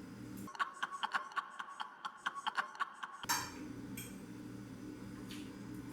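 Fork or cutlery clicking and clinking against a plate while eating, a quick irregular run of light taps for about three seconds. After that, only a steady low hum remains.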